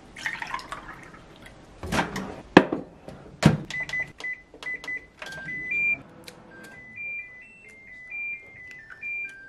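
Milk poured into a ceramic mug, then three loud clunks as the mug is handled and the microwave door shut. From about four seconds in, a simple high melody of short notes plays, with a few light clicks mixed in.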